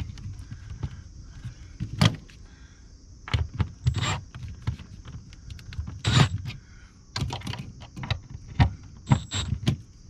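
A Milwaukee cordless drill-driver runs in a few short bursts, driving the screws that hold a GFCI receptacle into its box. Between the bursts come clicks and light metallic rattles from handling the receptacle and its screws.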